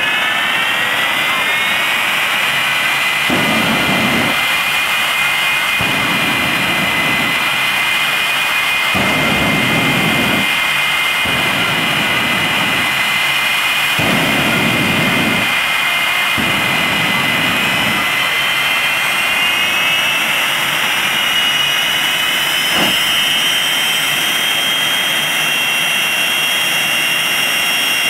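Two Westinghouse J34 turbojet engines in jet dragsters running on the starting line: a loud, steady high whine that climbs at the start and again a little later on. A run of deeper afterburner blasts, each a second or two long, breaks in between about three and eighteen seconds in, as the cars throw out fireballs.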